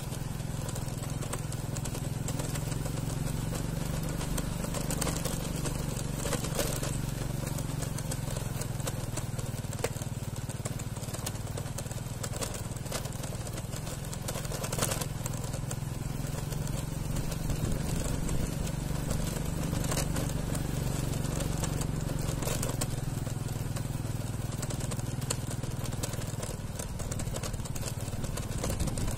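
A small engine running steadily, a low even hum, with faint outdoor background noise and occasional light clicks.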